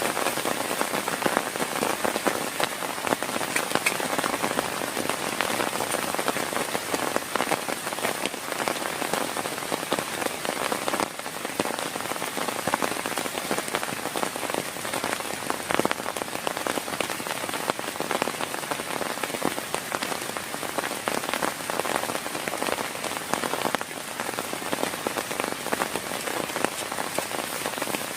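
Heavy rain falling steadily, a dense, even hiss of countless close drop hits.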